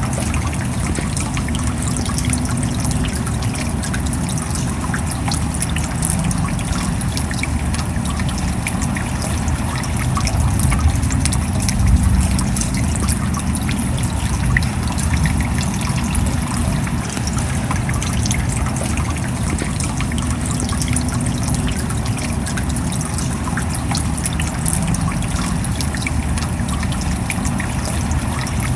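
Steady rain falling: a dense spray of small drop hits over a low rumble, running on evenly.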